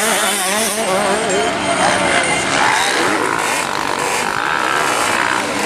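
Motocross bike engine revving up and down, its pitch rising and falling rapidly as the throttle is worked.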